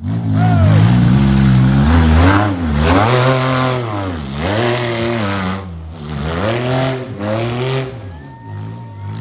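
A 2WD off-road buggy's engine is revving hard under load as it climbs a steep dirt hill. The revs rise and drop back over and over, about every second and a half, and are loudest in the first few seconds.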